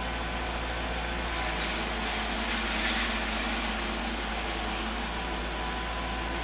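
Engine of a utility boom truck running steadily with a low rumble and a faint steady whine, swelling slightly about two to three seconds in.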